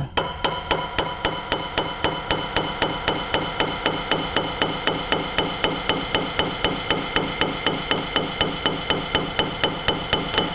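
A big hammer striking the steel back bite of a side-by-side shotgun's barrel lump held in a vise: rapid, even blows about three to four a second, each one ringing. The blows upset metal up on the rear bite so the underbolt bears tighter, tightening a worn action.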